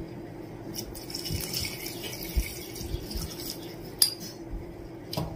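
Water poured from a tumbler into a pressure cooker of chicken masala gravy, splashing, with a few sharp clinks against the pot, the loudest about four seconds in.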